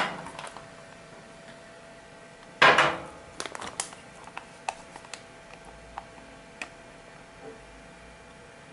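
Kitchen containers and utensils being handled on a counter: a loud knock at the start and another clatter about two and a half seconds in, followed by scattered light clicks and taps.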